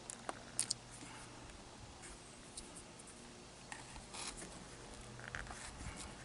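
Faint handling sounds of a rubber window weather strip and its trim being worked by hand: scattered small clicks and brief scrapes.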